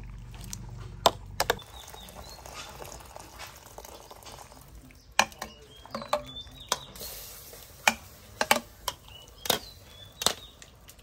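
Metal ladle clinking against a ceramic bowl and a metal pot as soup is scooped and served, a string of sharp, irregular clinks. Birds chirp faintly in the background.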